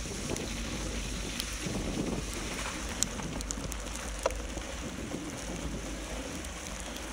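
Wind buffeting the microphone while a bicycle rides through snow, its tyres rolling over the snow cover. Two sharp clicks stand out, about three seconds in and again about a second later.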